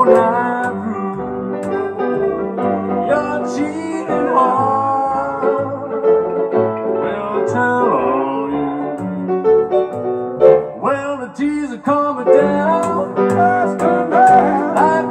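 Rock'n'roll piano break: piano played hard in chords and runs, with an upright double bass plucking a steady beat of low notes underneath.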